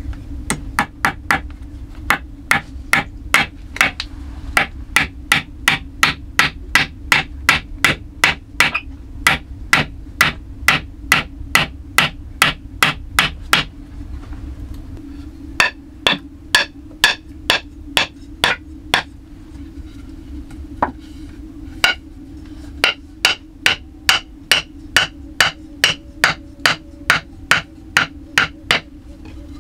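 Hammer strikes in a fast, steady rhythm, about two or three blows a second, stopping briefly twice and starting again.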